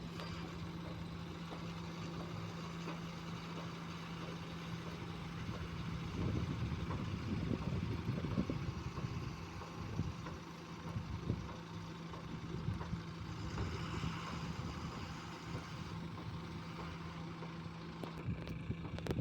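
Diesel engine of a heavy vehicle running at idle with a steady low hum, growing rougher and louder for a few seconds about six seconds in.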